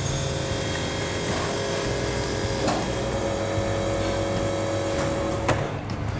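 Chamber vacuum sealer's pump running steadily as it draws the air out of the bag in its chamber, cutting off about five and a half seconds in.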